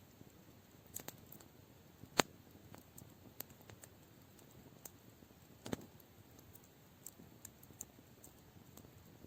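Campfire crackling: scattered sharp pops and snaps of burning wood over a faint steady hiss, the loudest pop about two seconds in and a duller one near six seconds.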